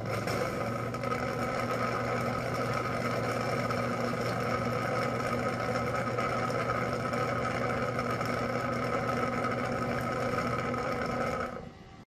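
Xiaomi Robot Vacuum X10+ Omni Station running its cleaning cycle for dust and mop pads: a steady motor hum with a whine over a rush of air. It cuts off suddenly near the end.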